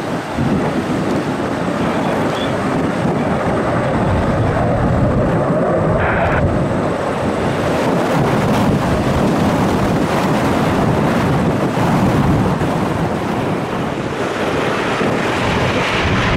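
Steady jet noise from a CF-18 Hornet's twin General Electric F404 turbofan engines as the jet flies its display.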